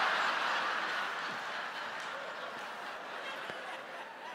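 Large auditorium audience laughing, loudest at first and slowly dying down.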